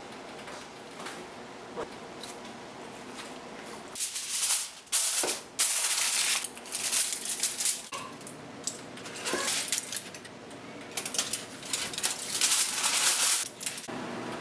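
Aluminium foil crinkling and rustling in loud bursts as it is handled and pressed over a glass baking dish. The first few seconds are quieter, with only a few light clicks.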